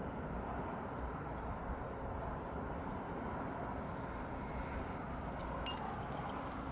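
Steady outdoor background noise of a parking lot under an approaching storm, even and without any pitch, with a few faint sharp clicks about five seconds in.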